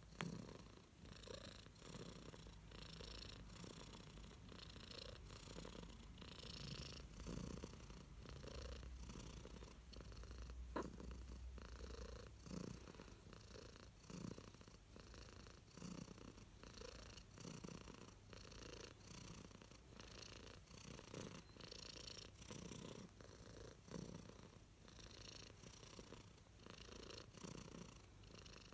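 Domestic cat purring softly and steadily while being stroked, a contented purr that swells and eases with each breath, about once a second. A single sharp click sounds near the middle.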